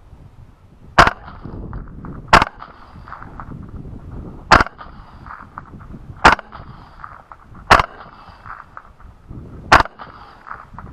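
Six suppressed shots from an LWRCI Razorback II rifle in 6.8 with a Bowers Group Vers 30T suppressor, fired one after another at an uneven pace about one and a half to two seconds apart.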